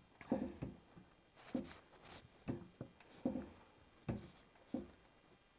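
Fingers patting and pressing a clear silicone stamp down onto a painted wooden drawer front: about a dozen soft taps at uneven spacing, stopping shortly before the end.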